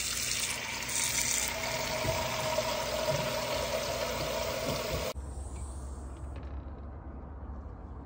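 Tap water running full stream into a ceramic-lined cooking pot in the sink, a steady splashing hiss with a filling tone. It cuts off abruptly about five seconds in, giving way to a quieter low hum.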